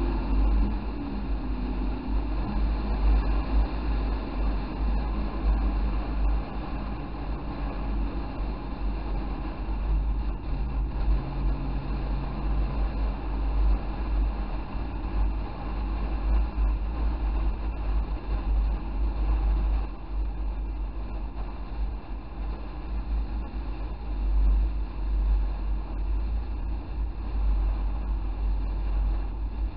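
Chevrolet Camaro on the move: steady low road and engine rumble inside the cabin, with the engine note rising briefly at the start.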